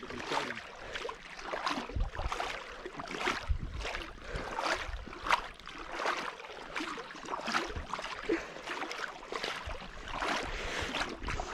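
Rhythmic swishes and splashes of water, about three every two seconds, from someone moving through shallow marsh water.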